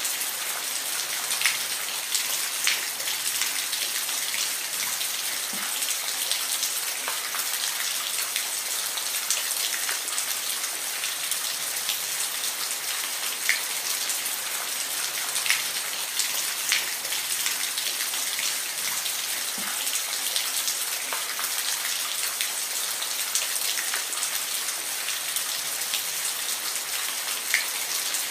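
Steady rain falling: an even hiss dotted with scattered sharp ticks of individual drops hitting a surface.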